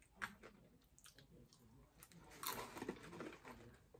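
Quiet close-up eating sounds: a few small mouth clicks and chewing, with a short, louder stretch of crunching and food handling about two and a half seconds in.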